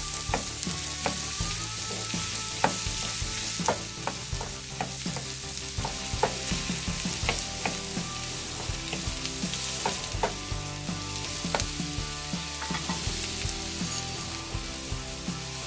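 Small onions (shallots) frying in coconut oil in a non-stick pan, sizzling steadily while a wooden spatula stirs them, with frequent sharp taps and scrapes of the spatula against the pan.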